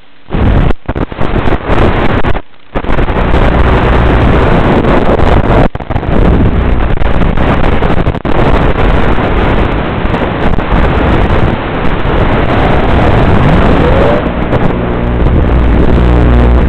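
Rushing wind and propeller noise from a flying wing's onboard FPV audio in fast, low flight. It cuts out briefly several times in the first three seconds as the video link breaks up. From about fourteen seconds in, a steadier pitched electric motor hum comes through.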